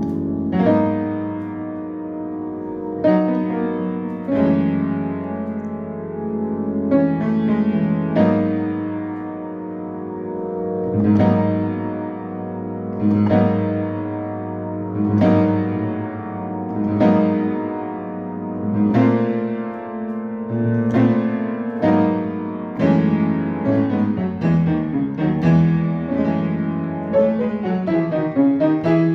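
Solo piano music: slow chords, each struck and left to ring, about every two seconds, with quicker runs of notes near the end.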